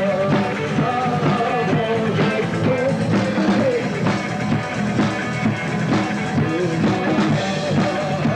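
Live rock band playing: electric guitars, bass and drum kit driving a steady rock beat, with a sliding melodic line carried over it.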